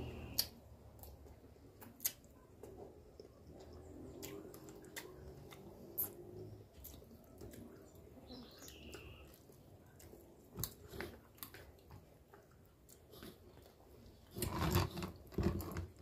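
Quiet eating sounds: chewing, with light clicks of a metal spoon against a plastic plate scattered throughout, and a louder cluster of eating noise near the end.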